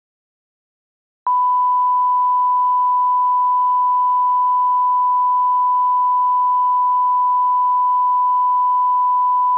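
Silence, then about a second in a steady, loud, single-pitched test tone starts and holds unchanged: the television line-up tone sounded over a test card at station closedown, signalling the end of the day's broadcasting.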